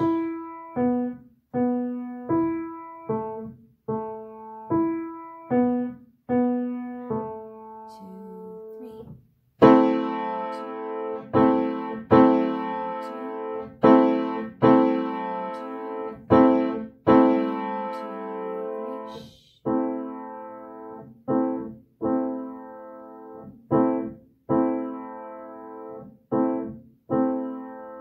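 Piano played with both hands in a slow three-beat piece. Single notes step down for the first nine seconds. From about ten seconds in, a loud A–C–E chord sounds in a long-short rhythm, and from about twenty seconds the same chords are repeated softly.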